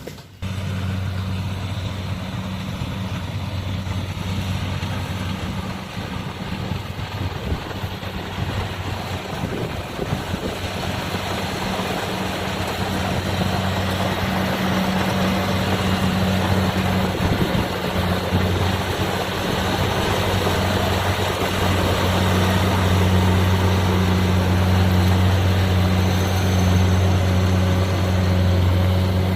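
Harvesting machine's diesel engine running steadily at a constant speed with a deep hum and mechanical clatter. It cuts in abruptly at the start and grows slightly louder over time.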